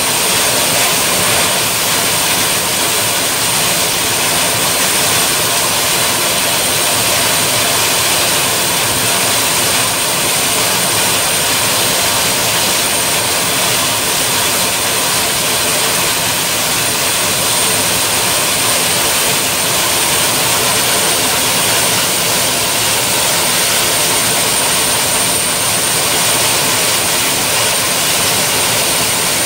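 Gas-turbine engines of a turbine-powered pulling tractor running steadily: a loud, even jet-like rush with a constant high-pitched whine.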